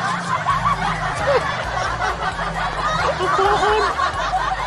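Several people laughing and chuckling together, over a steady low hum.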